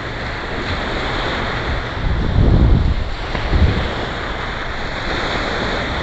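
Ocean surf washing up on the beach with wind on the microphone, a steady rush with two louder low rumbles a little past the middle.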